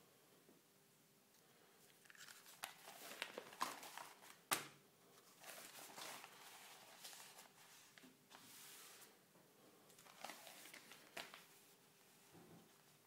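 Newspaper sheets rustling and crinkling as the sections are handled and gathered into a pile, in several spells, with one sharp tap about four and a half seconds in, the loudest sound.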